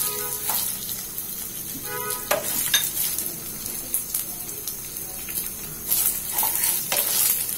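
Raw polau rice grains frying in hot oil in a non-stick pan, sizzling steadily while a wooden spatula stirs them, with several short scrapes of the spatula against the pan.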